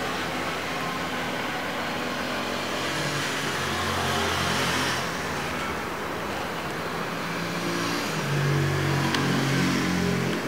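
An engine running, with a steady hiss over its low hum, swelling louder twice: about four seconds in and again from about eight seconds in.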